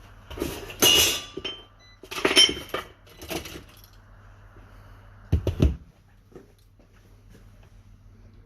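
Tools and metal parts being handled on a workbench: a few clattering, clinking knocks in the first few seconds, then a last pair a little over five seconds in.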